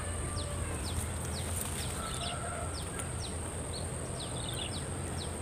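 Outdoor ambience: a small bird repeats short falling chirps about twice a second over a steady high-pitched insect drone and a low, even rumble.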